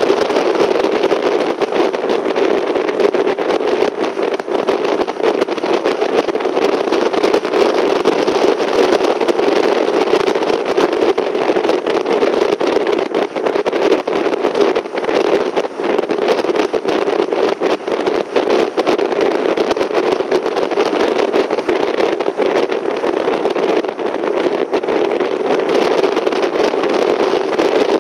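Steady car cabin noise while driving along a road: a continuous engine and tyre drone with frequent small knocks and rattles.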